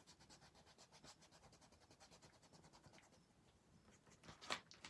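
Faint, quick back-and-forth rubbing of fingertips smudging crayon into a matte-medium-coated paper journal page, with a brief louder rustle about four and a half seconds in.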